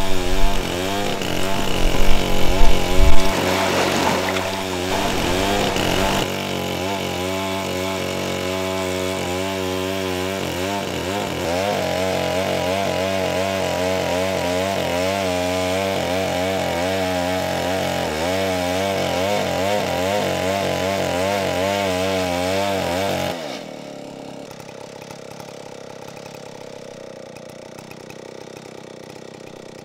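Two-stroke chainsaw running at high revs in an Alaskan chainsaw mill, ripping lengthwise through a log, its pitch wavering under load. About 23 seconds in the sound drops to a quieter level.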